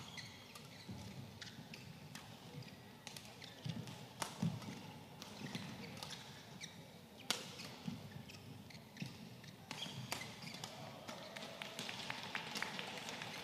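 Badminton doubles rally: a string of sharp, irregularly spaced cracks of rackets striking the shuttlecock, the loudest about seven seconds in, with dull thuds of players' footwork on the court. All of it is faint, over quiet arena ambience.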